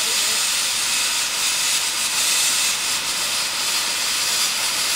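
15-inch gauge steam locomotive standing with steam hissing steadily out at the front by its cylinders.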